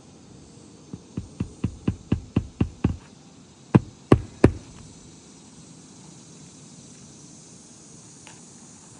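Hammer nailing a roofing shingle into the roof deck: a run of about eight quick, lighter taps, then three harder blows.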